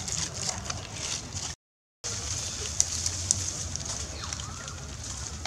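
Outdoor ambience: a steady high-pitched hiss over a low rumble, broken by a half-second dropout to silence about a second and a half in, with two sharp clicks about three seconds in.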